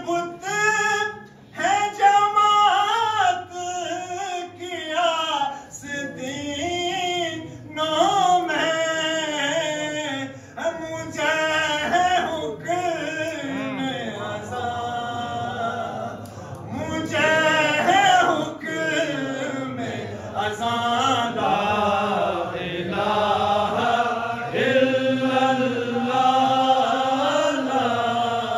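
A man singing an Urdu devotional poem in long, melodic, bending phrases.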